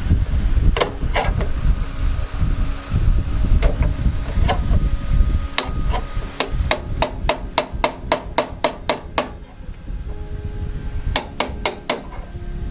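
Hammer blows on steel sheet metal, each strike ringing: a few spaced blows, then a quick run of about a dozen at roughly three or four a second, then four more near the end.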